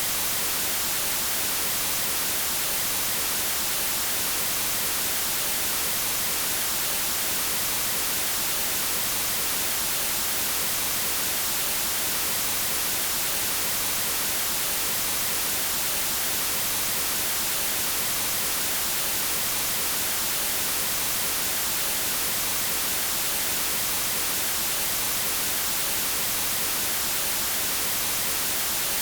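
Steady white noise test signal at −20 dBFS, used for calibrating audio equipment: an even, unchanging hiss.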